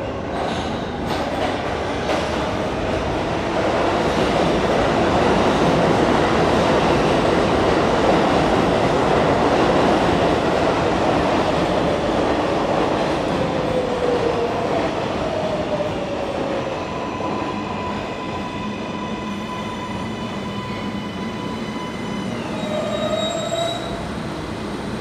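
An R188 subway train on the 7 line pulling into an underground station. The wheels rumble louder as the cars sweep past, and a squeal falls in pitch about halfway through. Near the end a whine steps down in pitch as the train brakes to a stop.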